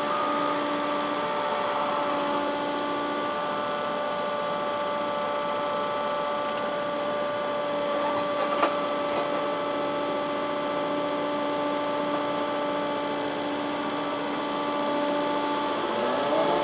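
Engine running steadily with an even hum, with one sharp knock about eight and a half seconds in and a rising whine near the end.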